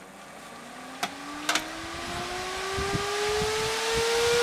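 A 280 CFM server fan, switched on by its temperature controller to cool the radios, spinning up: a whine that rises steadily in pitch and grows louder. Two sharp clicks sound about a second and a second and a half in.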